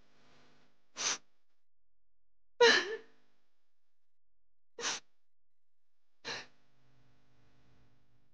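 A woman crying: four short sobbing gasps, the second the loudest, with a catch of voice in it.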